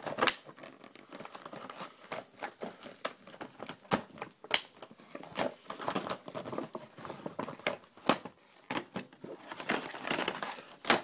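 Clear plastic packaging crinkling as it is handled and scrunched by hand, a run of irregular crackles.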